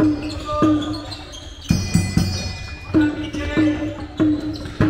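Handball being bounced on a sports-hall floor during play, roughly one bounce every 0.6 s, each leaving a short ringing tone. The rhythm breaks near the middle for a few heavier thumps, then picks up again.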